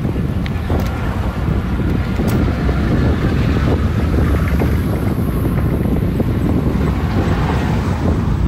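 Steady wind noise buffeting the microphone of a camera mounted on a road bicycle riding at about 10 mph, heaviest in the low rumble.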